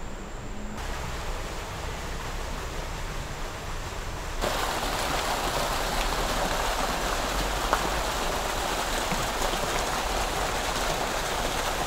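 Fountain jets splashing into a garden pond: a steady rush of falling water that grows louder about four seconds in.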